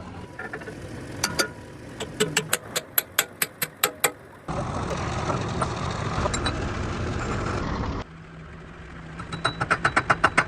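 Workshop noise: a run of sharp knocks, about four a second, switches abruptly to a steady machine noise. That stops after a few seconds, and faster knocks start near the end.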